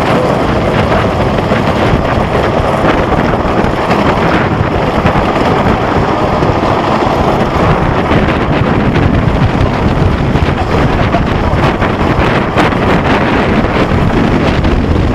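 Custom Coasters International wooden roller coaster train running over the wooden track at speed, with wind buffeting the microphone.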